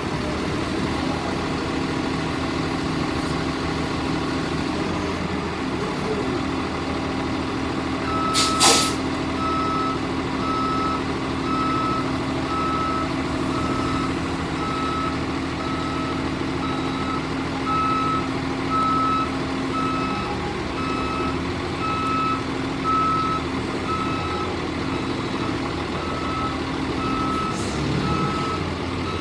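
Gradall wheeled excavator's Cummins ISB diesel engine running steadily. About eight seconds in there is a short, sharp hiss of air, then the travel/backup alarm starts beeping at an even pace as the machine is put in motion.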